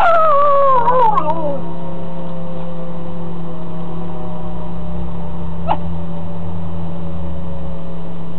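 A dog howls once, a call lasting about a second and a half that falls in pitch and wavers near its end. A steady siren tone runs beneath it. A short, sharp sound comes about six seconds in.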